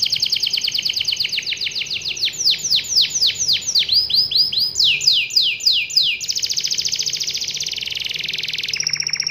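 Domestic canary singing a long rolling song: a fast high trill, then a run of slower notes that each fall in pitch, then another fast trill.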